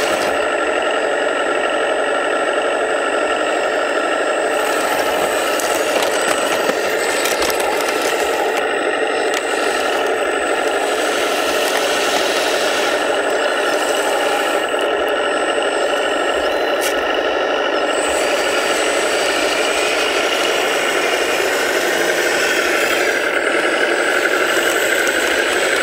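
A 1/14 scale RC hydraulic track loader running steadily, its electric motors and hydraulic pump giving a mechanical drone with a thin high whine and occasional sharp clicks.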